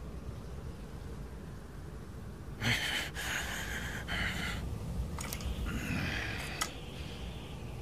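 A low steady rumble. About two and a half seconds in comes a sudden hissing breath lasting about two seconds, followed by a few sharp clicks and a second, shorter hiss.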